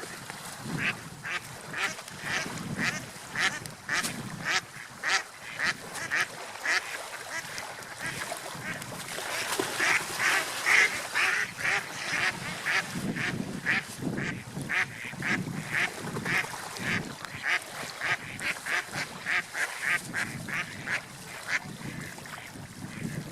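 Ducks quacking over and over, about two short calls a second, busiest about ten seconds in, over a low wash of water and wind.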